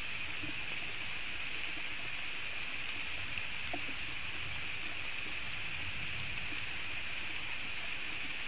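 Steady hiss of rain falling on the forest during a thunderstorm, with a faint low rumble underneath.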